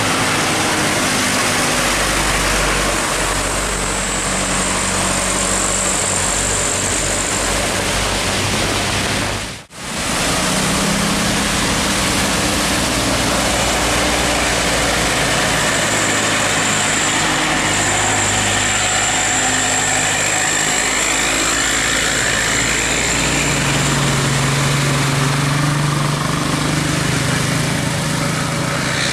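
Large bus engine running steadily with a loud rush of road and engine noise; the sound drops out briefly about ten seconds in and resumes.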